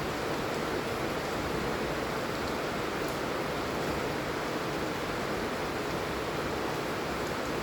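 Steady heavy rain falling, an even rushing hiss with no breaks or separate drops standing out.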